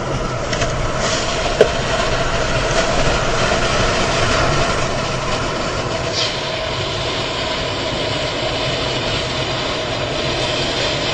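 Steady roar of engine, tyres and wind inside a car's cabin at high speed, about 140 km/h, with a single sharp click about one and a half seconds in.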